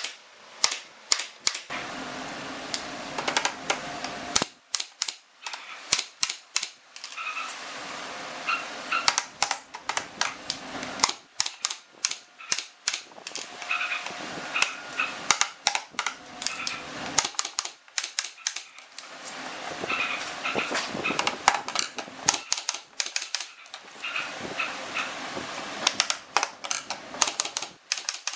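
Pneumatic brad nailer firing nails into wooden slats: sharp shots in quick runs of several at a time, with short pauses between runs, repeating throughout.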